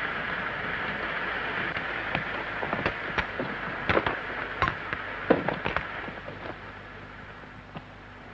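Steady hiss with scattered sharp crackles and pops, thickest about three to six seconds in; after that the hiss fades away.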